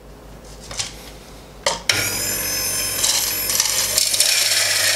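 An electric burr coffee grinder (600N) grinding espresso beans at a fine setting. Its motor starts about two seconds in and runs steadily with a high whine, after a couple of light knocks.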